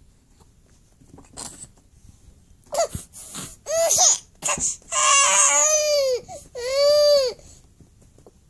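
Infant crying while being spoon-fed pureed peas: after a quiet couple of seconds, a few short fussy cries build into two longer wails, the first wavering in pitch, the second rising and falling.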